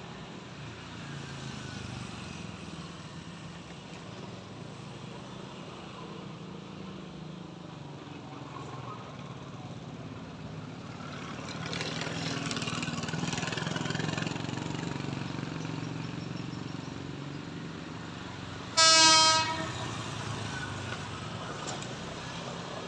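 Horn of an approaching electric commuter train: one short, loud blast about three-quarters of the way in, over a steady rumble of urban background noise that swells for a few seconds around the middle.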